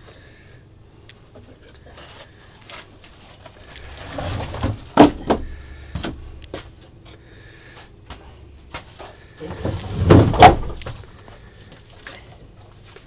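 Scattered knocks and clatter of things being handled on a wooden workbench, with two louder bumps about five and ten seconds in.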